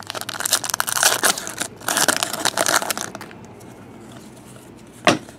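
Foil wrapper of a trading-card pack being torn open and crinkled by hand, in two crackling bursts over the first three seconds. A single sharp click comes near the end.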